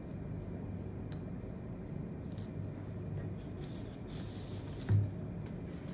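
Steady low room hum with faint rustling, and one brief dull thump about five seconds in.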